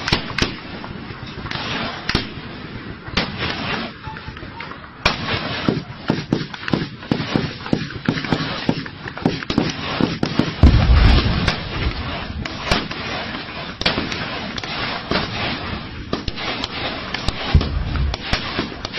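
Sustained gunfire from a firefight: many rapid, irregular shots overlapping, with automatic bursts and tracer rounds. Two deeper booms stand out, one about eleven seconds in and one near the end.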